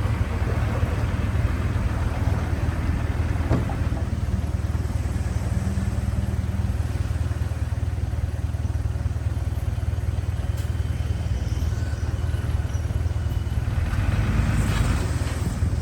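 Heavy diesel earthmoving machinery running steadily with a deep, even engine drone, with one faint knock about three and a half seconds in.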